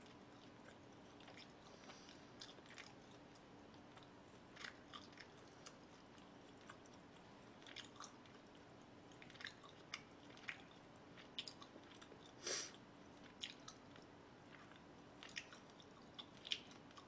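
Close-miked chewing of food: soft, irregular mouth clicks and smacks scattered throughout, over a faint steady hum.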